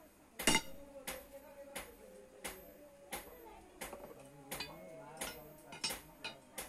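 Blacksmith's hammer striking metal on the anvil in a steady rhythm, about one blow every two-thirds of a second, each a sharp metallic clink with a short ring, during hand forging.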